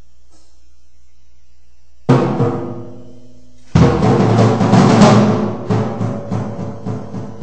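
Acoustic drum kit being tapped to test its sound. A single drum hit about two seconds in rings out and fades, then from about three and a half seconds a loud run of rapid strokes settles into a steady pattern of hits, about three or four a second.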